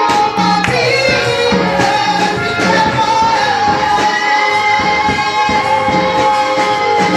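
Worship song: a voice holds long sung notes over a band with a steady percussion beat.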